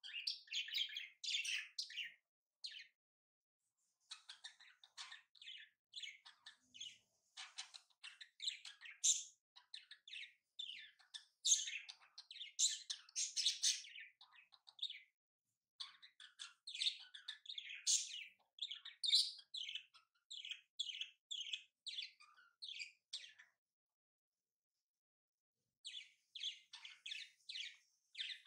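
Small birds chirping in quick runs of short, high notes, broken by a couple of short pauses.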